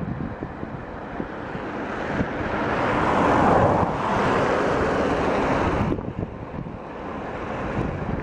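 2TE116 twin-section diesel locomotive rumbling as it moves slowly along the track. A broad rushing hiss swells from about two seconds in and cuts off suddenly near six seconds.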